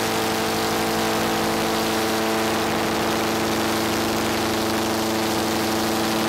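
Ship's horn sounding one long, steady, deep blast that holds at a single pitch and cuts off abruptly at the end, over a steady hiss.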